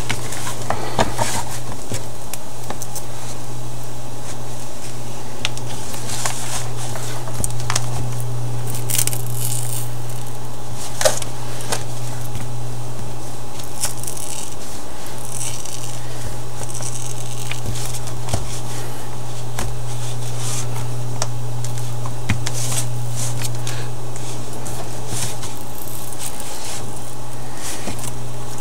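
Small crackles, clicks and scrapes as the tablet's cracked touchscreen glass is pried and peeled up from its adhesive, over a steady low hum.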